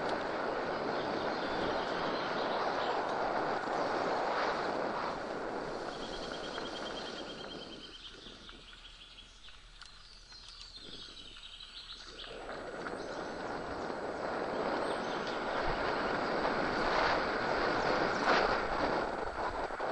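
Mountain bike rolling fast over a dirt forest trail: steady wind rush on the camera microphone with tyre and frame rattle. It eases off in the middle, where a bird's short trill and song come through before the rushing builds again.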